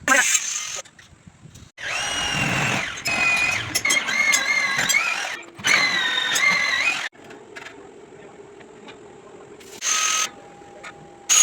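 Handheld power tool working stainless steel grill, run in several bursts of a few seconds each, with a high squealing tone whose pitch wavers under load.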